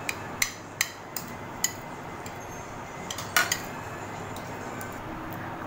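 Spoons and forks clinking against dinner plates while eating: a scatter of light clicks in the first couple of seconds, then a louder clatter about three and a half seconds in, over a steady low hum.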